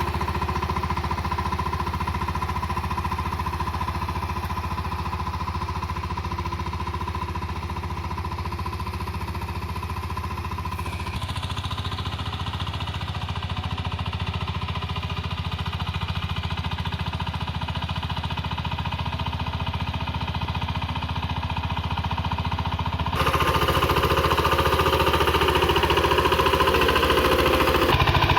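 VST Shakti 130 DI power tiller's single-cylinder diesel engine running steadily. The sound changes character about eleven seconds in and gets louder about twenty-three seconds in.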